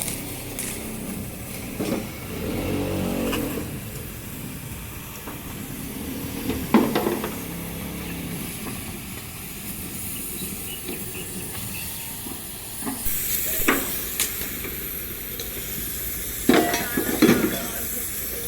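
Steady hissing workshop noise, broken by a few sharp ringing knocks: one about a third of the way in, another past the middle, and two close together near the end.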